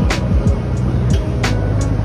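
Background music with a steady beat: deep bass kicks about twice a second and a sharp snare-like hit about every second and a half.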